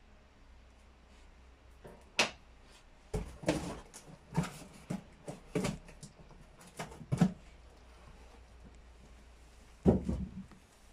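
A cardboard box being handled: a run of separate knocks and taps as its flaps are folded and pressed, then one louder thump near the end as it is moved or set down.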